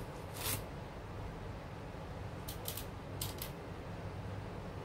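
Handling noise from unpacking a boxed kit: a few brief rustles and scrapes of packaging, once about half a second in and a few more around the three-second mark, over a low steady hum.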